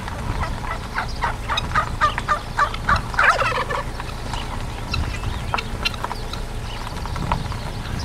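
Helmeted guineafowl calling: a rapid run of short harsh notes over a couple of seconds, loudest about three seconds in, then scattered single calls.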